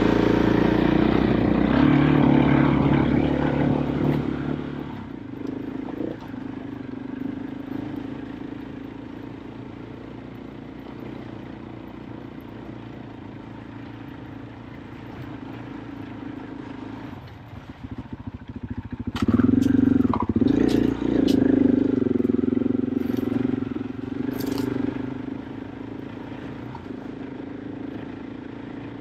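KTM 500 EXC-F single-cylinder four-stroke dirt bike engine running on a trail: pulling hard at first, easing off after about four seconds to a quieter steady run, then revving up again about nineteen seconds in. A few sharp clicks and knocks come during the rev-up.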